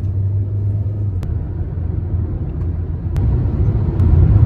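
Steady low road and engine rumble of a car driving at highway speed, heard inside the cabin, growing a little louder near the end as the car enters a road tunnel.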